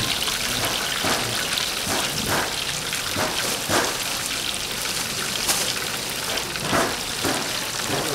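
Chicken deep-frying in hot oil: a steady, dense crackling sizzle with a few louder clicks.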